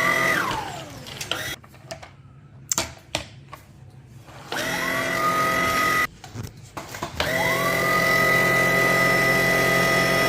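Handheld vacuum cleaner's motor switched on and off three times: its whine dies away with a falling pitch just after the start, runs again for about a second and a half and cuts off, then spins up with a rising whine about seven seconds in and runs steadily. Light clicks and knocks of handling between the runs.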